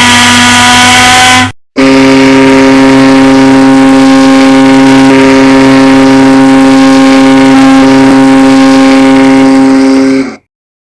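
Ship's horn blasts, loud: one blast cuts off about a second and a half in, then after a short break a second, long steady blast sounds for about eight and a half seconds, a deep chord of several tones, before stopping abruptly.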